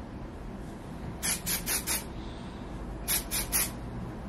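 Aerosol texturizing hair spray (Drybar Triple Sec) sprayed in quick short bursts: a cluster of four or five hissing puffs about a second in, then three or four more about three seconds in.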